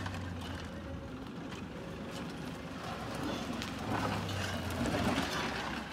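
Mahindra Bolero's diesel engine running low as the SUV crawls over rough dirt through scrub, with rustling and crunching of dry brush, loudest about three to five seconds in.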